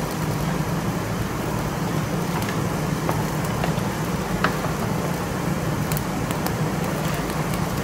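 Meat sizzling and crackling on a tabletop grill, with scattered small pops over a steady low hum.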